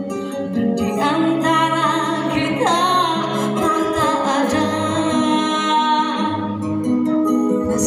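A woman singing into a microphone over instrumental backing music; her voice comes in about a second in, with vibrato on the held notes.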